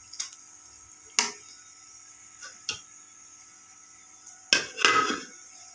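Steel ladle clinking and scraping against the side of a metal cooking pot while chopped ridge gourd is stirred. A few sharp knocks, with the loudest cluster near the end.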